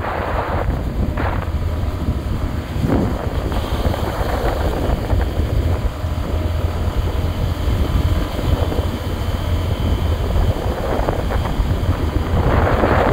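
Wind rushing over the microphone of a moving motorcycle, with a low steady rumble from the ride underneath and gusts that swell and fade.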